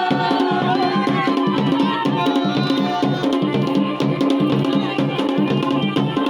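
Dhol and damau, the Garhwali folk drum pair, played in a fast, steady rhythm, with a melodic line sounding above the drumming.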